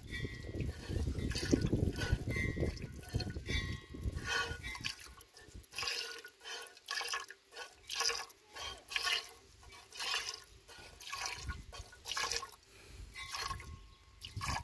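Cow being milked by hand: milk squirting from the teat in regular hissing jets, about two a second. A low rumble fills the first few seconds.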